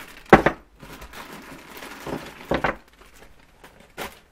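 Small zip-lock plastic bags of motorcycle mount parts crinkling as they are handled, with a few knocks as the bagged parts are set down on a wooden workbench. The loudest knock comes about a third of a second in, and a sharp click comes near the end.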